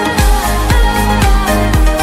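Background music: an upbeat dance-pop track with a steady kick drum at about two beats a second.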